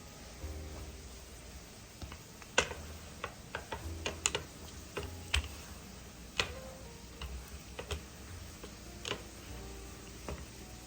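Irregular light clicks and taps, about a dozen of them scattered unevenly, over a faint low background.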